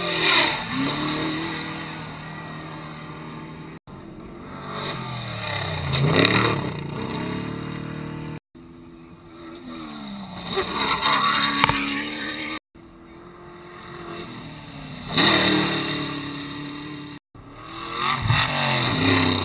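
Unlimited-class off-road race trucks going by one after another, five in all. Each engine revs up to a loud peak and then drops in pitch as the truck passes, and each pass is cut off abruptly.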